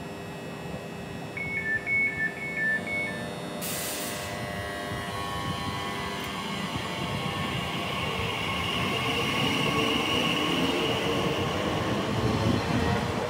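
Elizabeth Line Class 345 electric train departing: door warning beeps, a brief hiss as the doors close, then the traction motors' whine rising in pitch as the train accelerates away, growing louder.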